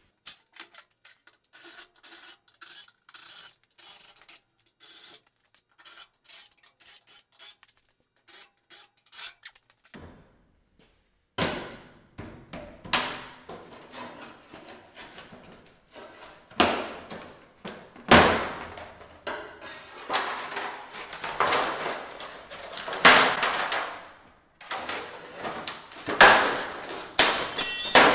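Hammer and pry bar working aluminum trim off a horse trailer. Light tapping for about the first ten seconds, then loud metal knocks and clangs with scraping between them as the trim is pried loose.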